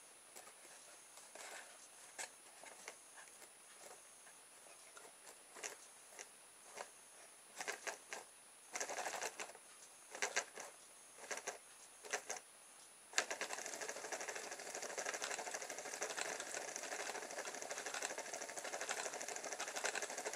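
Homemade magnet-and-coil motor on a bicycle-spoke axle, its wire brush clicking against the paint-segmented spoke that serves as a commutator. At first there are scattered clicks and short bursts as the rotor is nudged and starts and stops. From about two-thirds of the way in it runs continuously with a fast, even ticking buzz.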